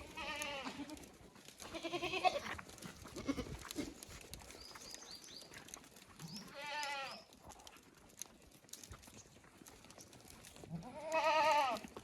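Osmanabadi goats bleating, four separate quavering bleats, the loudest near the end.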